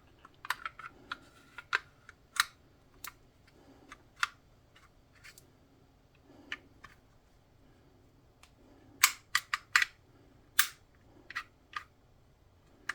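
Scattered sharp metallic clicks and clacks of a Live Free Armory Apollo 11 9mm pistol being handled and its action worked, with a quick run of louder clicks about nine to ten seconds in.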